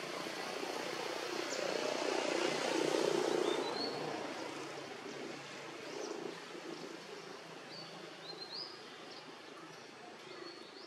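A distant engine rumble that swells to its loudest about three seconds in, then slowly fades. A few short, high rising chirps come about three and a half seconds in and again around eight seconds.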